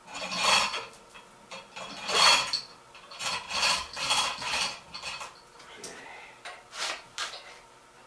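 A dolly being pushed and scraped across the floor into position beneath a hoisted machine: a series of rough scraping strokes, the loudest about two seconds in.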